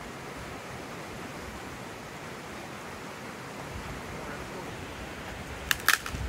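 Steady rushing outdoor background noise, with two sharp clicks close together near the end.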